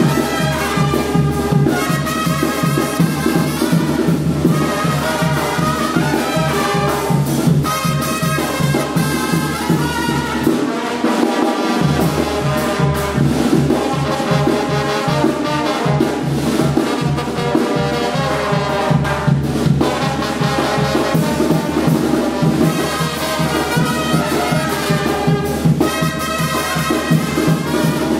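Brass dance music with trumpets and trombones over a steady beat and bass line; the bass drops out for about a second around eleven seconds in.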